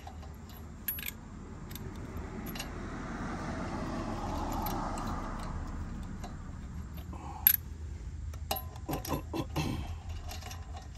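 Steel lug nuts and socket clinking and ticking as they are threaded by hand onto a car's wheel studs, with one sharp metallic click, the loudest sound, about seven and a half seconds in. A low rush of noise swells and fades in the middle.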